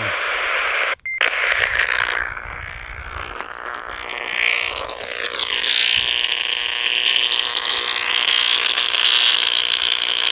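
Power line interference heard through a radio receiver: a loud, steady hissing buzz with wavering whistle-like tones, dropping out for an instant about a second in. The owner blames a bad or loose ground or a lightning arrester on the line.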